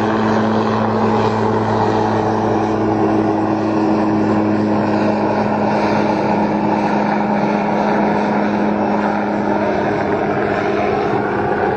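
Helicopter hovering: a steady rotor and engine drone with a constant low hum that does not rise or fall.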